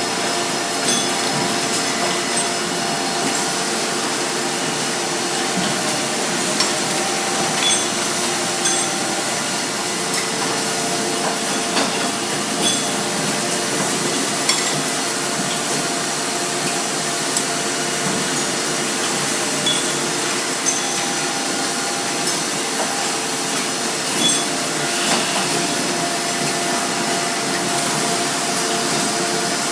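Robotic factory production line running: a steady machine hum with a few constant tones, broken by scattered short metallic clicks and knocks.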